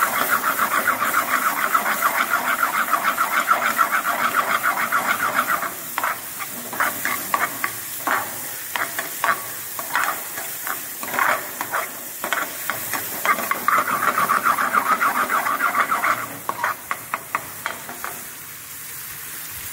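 Steel ladle stirring chopped vegetables round a metal pan of hot oil while they sauté. The scraping is fast and continuous for the first six seconds and again from about thirteen to sixteen seconds, with separate scrapes in between. Under it all the oil sizzles, and the sizzle is left on its own near the end.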